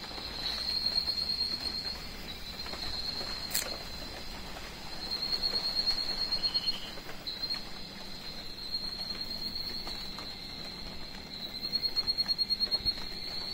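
Insect chorus: a steady high-pitched whine that swells three times into fast pulsing, about eight or nine pulses a second. One sharp click comes about three and a half seconds in.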